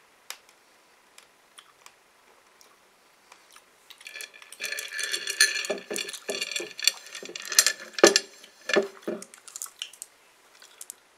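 Plastic sweet packet crinkling and rustling as a hand rummages in it for a sweet, starting about four seconds in and dying away near the end, after a few light clicks.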